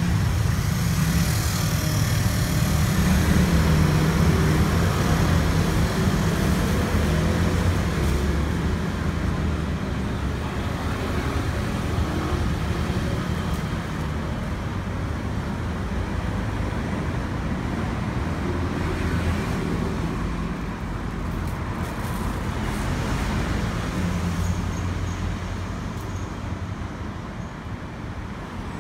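Street traffic noise: a steady rumble of passing road vehicles that slowly swells and eases.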